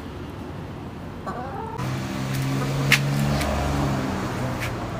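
Pet hens clucking, with a short rising call a little over a second in. A steady low hum runs from about two seconds in until shortly before the end, with a sharp click about three seconds in.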